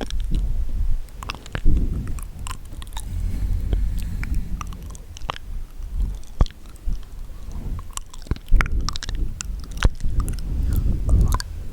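Wet mouth sounds: irregular sharp, moist clicks and pops from the mouth.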